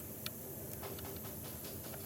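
Light, irregular clicks and taps of tools and parts being handled during transfer case work, the sharpest about a quarter second in, over a steady low hum.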